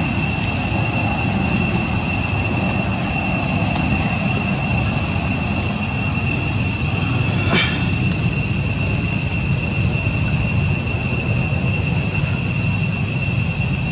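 Steady background noise: a low rumble under a constant high-pitched whine, with one short chirp about seven and a half seconds in.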